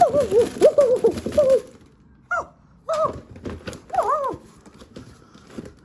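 Monkey calls: a fast run of short, chattering cries for about a second and a half, over some knocking, then three separate cries about a second apart.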